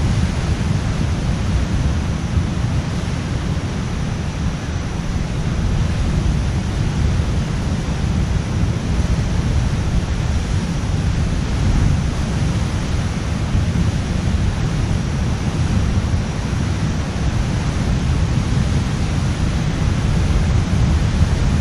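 Steady wind buffeting the camera microphone, mixed with ocean surf breaking on a rocky shore: a constant low rumble and hiss with no distinct events.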